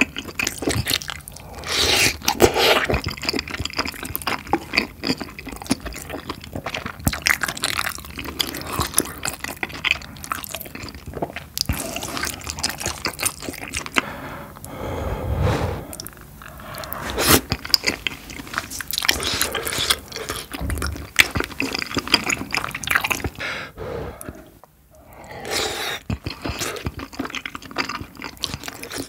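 Close-miked chewing of spicy tteokbokki and gopchang (intestines) in thick sauce: sticky, wet smacking and squelching mouth sounds, one mouthful after another.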